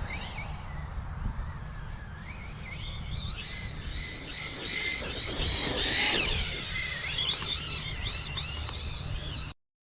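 Electric RC monster truck's motor whining, its pitch rising and falling over and over with the throttle as it drives, louder from about three seconds in; the sound cuts off suddenly near the end.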